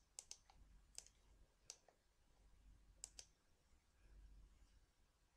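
Faint scattered clicks from a computer mouse and keyboard being worked, some in quick pairs, over a low steady hum.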